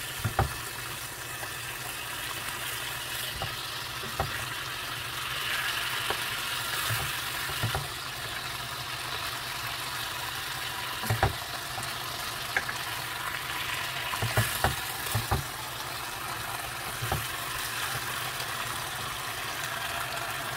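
Blue marlin steaks sizzling steadily in teriyaki sauce in a frying pan, with a dozen or so short knocks of a wooden spatula against the pan as the fish is turned and moved.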